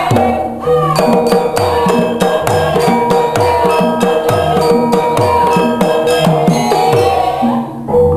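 Music accompanying a traditional dance: drum strokes that slide in pitch, repeating in a steady beat, under sustained instrument tones.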